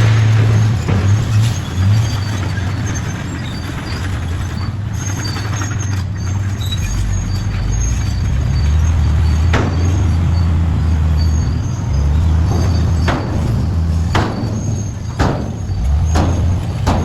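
Heavy diesel engine of a construction machine running steadily with its pitch and load shifting. Several sharp metallic knocks sound over it in the second half.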